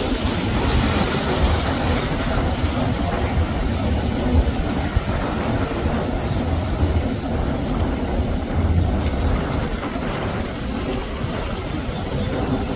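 Pershing 8X motor yacht passing close under power: a steady low engine rumble mixed with the rushing of its wake through the water.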